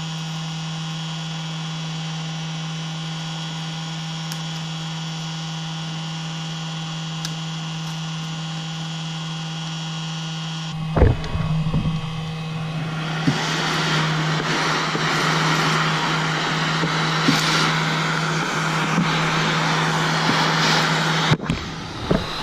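Heat gun running with a steady electric hum. About halfway through there is a knock, then a louder rushing of air joins the hum and continues, with a few small knocks near the end.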